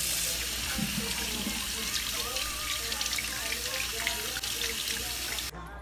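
Kitchen tap running in a steady stream, splashing over a sea bream being rinsed by hand in the sink. The tap is shut off near the end and the rushing stops suddenly.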